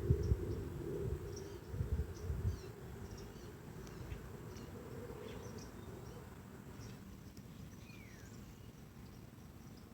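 Outdoor ambience: faint, short high chirps and ticks from insects or birds scattered throughout, with one falling call near the end. A low rumble on the microphone with a few bumps fills the first two and a half seconds, then fades.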